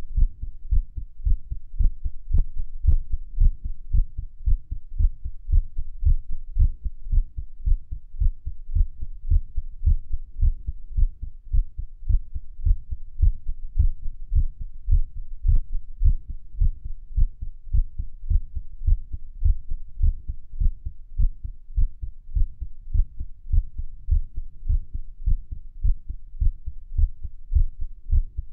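A human heartbeat recorded close against the chest at Erb's point: a rapid, uneven run of low thumps. The uploader calls it an irregular, fast heartbeat.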